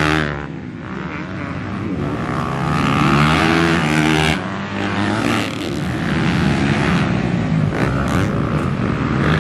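Motocross dirt bike engines revving on the track, pitch repeatedly climbing and dropping as riders work the throttle and shift, with more than one bike running at once.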